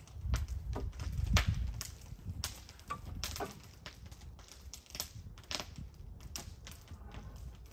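Irregular light taps and clicks of a steel combination square and pencil being set on and worked along a wooden board while it is marked for a cut, over a low rumble that is strongest in the first two seconds.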